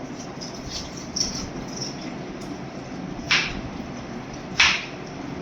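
Kitchen food-preparation sounds over a steady low background noise: a few faint ticks, then two short, louder scraping strokes about a second and a half apart, the second one the loudest.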